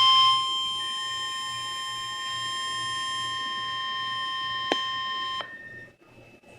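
NOAA Weather Radio's 1050 Hz warning alarm tone, which signals that an emergency alert is about to be read. It is one steady, shrill tone that drops in level just after the start, has a sharp click a little past four and a half seconds, and cuts off suddenly about five and a half seconds in.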